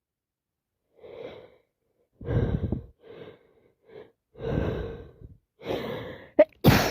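A woman with a heavy head cold takes a series of gasping, catching breaths as a sneeze builds. Near the end the sneeze breaks out in one short, loud blast.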